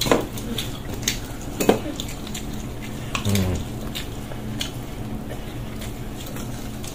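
Scattered light clicks and clinks of food being picked by hand from a metal serving platter, with eating noises; a short low vocal sound about three seconds in.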